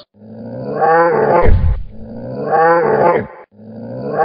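Monster roar sound effect, a growling animal-like roar repeated three times, each about a second and a half long and dropping in pitch as it ends. A deep thud lands about a second and a half in.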